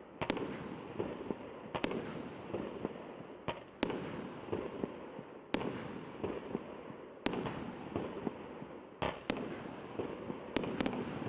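Consumer fireworks battery (multi-shot cake) firing: a sharp bang about every two seconds, with dense crackling in between, and two shots in quick pairs near the end.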